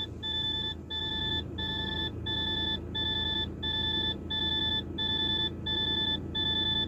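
In-cab electronic warning beeper of a DAF truck, sounding a steady run of identical beeps, about one and a half a second, over the low hum of the running diesel engine.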